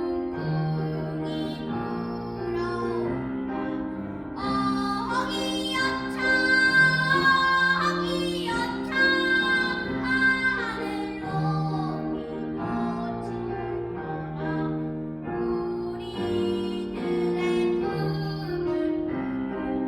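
A child singing a slow melody solo over instrumental accompaniment, with long held notes and a few upward slides in pitch.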